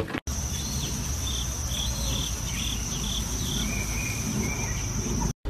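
Steady high-pitched drone of insects outdoors, with a bird giving a quick run of about six short chirps and then a couple of lower chirps, over a low rumble.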